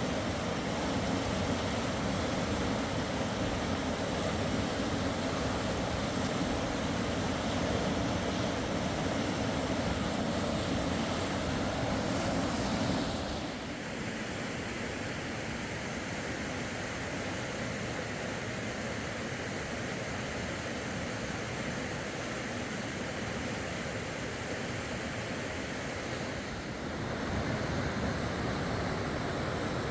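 Steady rush of fast-flowing river water. The sound changes abruptly about halfway through, losing much of its low rumble and turning a little quieter, then grows louder again near the end.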